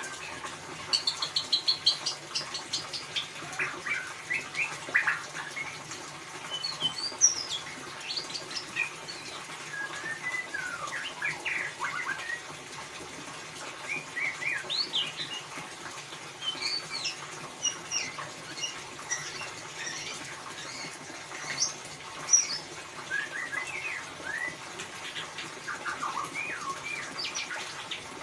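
White-rumped shama (murai batu) singing in the 'ngeriwik' style: a continuous, fast stream of short chirps and rising and falling whistled notes, with a quick rattling run of high notes about a second in.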